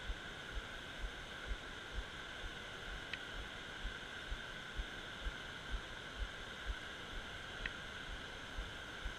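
Steady rush of water spilling over a low dam, with a soft low thump repeating about twice a second. Two brief high chirps come through it.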